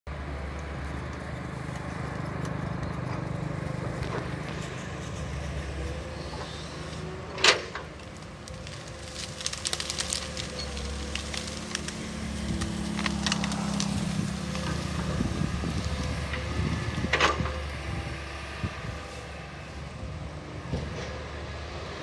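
Hitachi crawler excavator's diesel engine running steadily, its note rising and falling as the machine works. Two sharp knocks about ten seconds apart stand out, with crackling between them.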